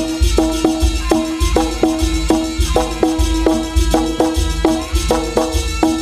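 Jaranan gamelan accompaniment playing an even run of struck, ringing metal notes, about three a second, over deep drum beats.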